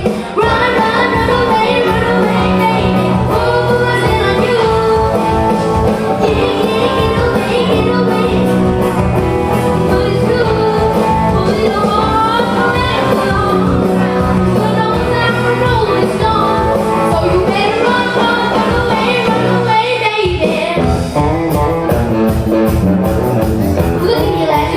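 Live band playing a pop-rock cover with a lead vocal over drums, bass guitar and electric guitar; the band briefly drops out about twenty seconds in, then comes back.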